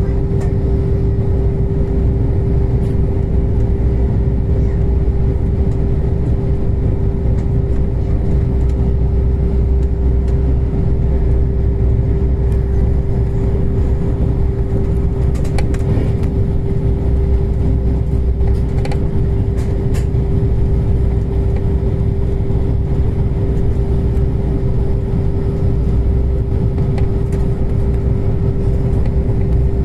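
Regional train running, heard from inside the carriage: a steady low rumble under a constant hum, with a few light clicks midway.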